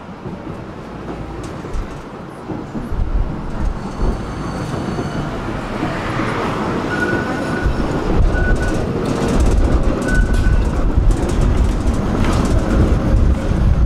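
Tram running on its rails, heard from aboard: a steady rumble that grows louder, with three brief high squeaks around the middle and clattering in the second half.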